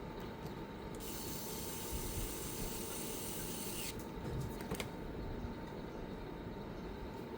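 Small clicks and mechanical handling sounds over a steady low background hum, with a high hiss of about three seconds starting a second in.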